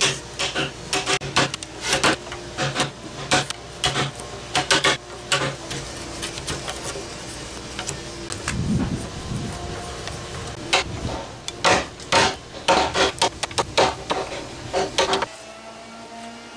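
Chisel paring and scraping into a timber beam by hand: a fast, irregular run of short, crisp cuts and scrapes, stopping abruptly near the end.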